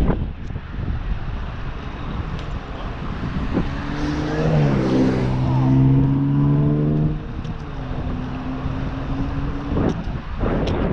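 Wind rushing over the microphone of a moving bicycle, with a pitched, engine-like hum for about three and a half seconds in the middle and a few short knocks near the start and the end.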